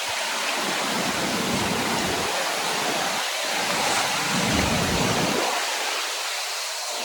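Close-up roar of the Gljúfrafoss waterfall: a loud, steady rush of falling water, with a deep rumble underneath that cuts out for moments and returns.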